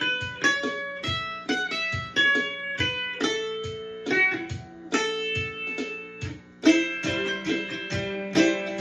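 Ibanez mandolin strung with D'Addario strings, picked note by note in a tune in the key of G, with a low note ringing underneath much of the time. One note near the end is picked noticeably harder.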